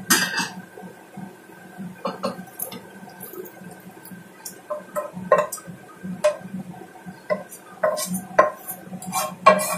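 A metal pot lid clanks at the start, then a wooden spatula knocks and scrapes against a wok in irregular strokes as fried tempeh is tipped into a stainless steel pot.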